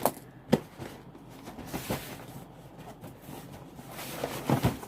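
Packaging being handled and opened by hand: rustling with a few sharp clicks and knocks, the loudest just after the start and a cluster near the end.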